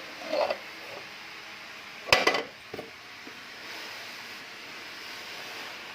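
Scouring pad wiping the inside of a refrigerator with cleaning solution, a faint steady rubbing hiss. One sharp knock of something hard comes about two seconds in, with a smaller click just after.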